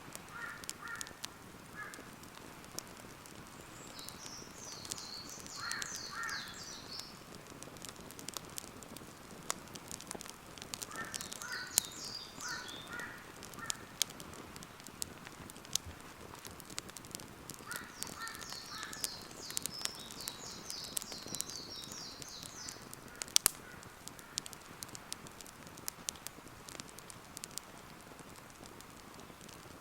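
Wood campfire crackling with scattered sharp pops, the loudest a little after the middle, while birds call several times: short series of three or four repeated mid-pitched notes, alternating with higher, quicker chattering song.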